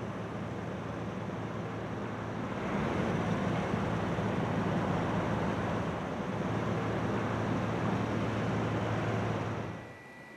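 Outdoor street ambience: a steady low engine hum under traffic noise, growing louder about three seconds in and cutting off shortly before the end.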